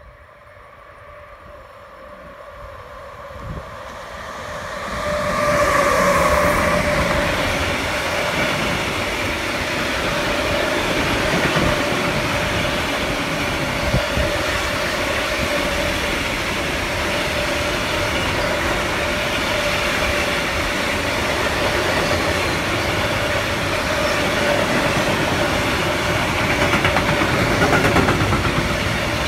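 Heavy freight train of large hopper wagons, an ore train, approaching and passing close by. It rises from faint to loud over the first six seconds as the electric locomotive comes past, then keeps up a steady rumble and clatter of wagon wheels on the rails with a steady hum.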